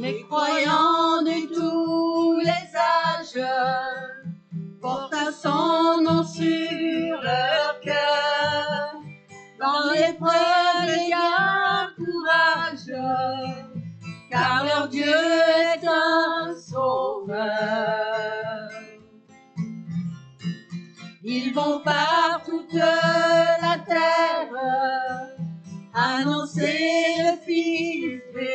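Women's voices singing a worship hymn in phrases, accompanied by a strummed acoustic guitar, with brief pauses in the voices between lines.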